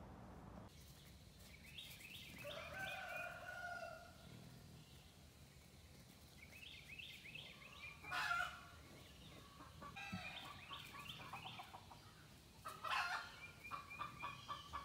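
Faint animal calls: bursts of quick, short chirps, one longer two-toned call about three seconds in, and a run of rapid pulses, about four a second, near the end.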